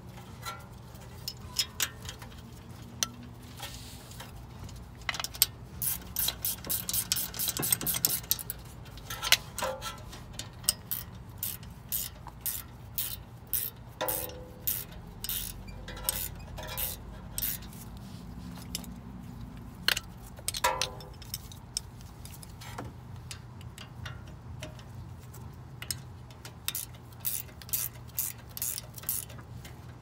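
Hand ratchet clicking in quick runs of ticks as the two 13 mm rear brake caliper bolts are run in, with scattered metallic clinks of the socket and tools.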